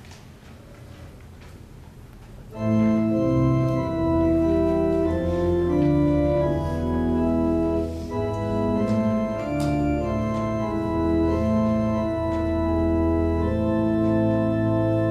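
Organ playing the introduction to a hymn in sustained, held chords, coming in about two and a half seconds in after a few seconds of quiet room noise.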